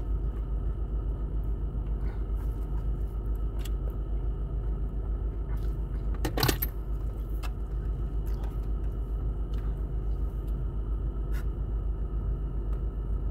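Steady hum of an idling car, heard from inside the cabin, with scattered clicks and crackles of a clear plastic takeout container being handled. The loudest is a short crackle about six and a half seconds in.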